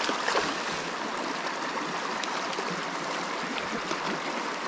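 Shallow river rushing over rocks in a riffle: a steady sound of flowing water.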